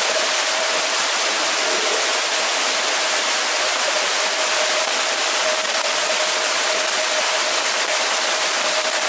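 Steady rushing noise of water splashing in a swimming pool as swimmers train, with a steady mid-pitched hum running under it.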